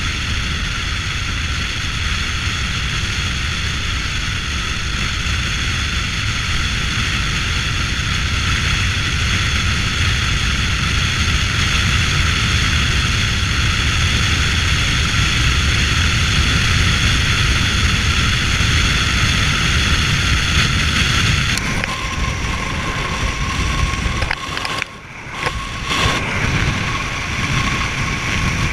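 Steady road and wind noise from a pickup driving at speed, a continuous low rumble with a hiss over it. The sound changes about three-quarters of the way through and drops away briefly for about a second before returning.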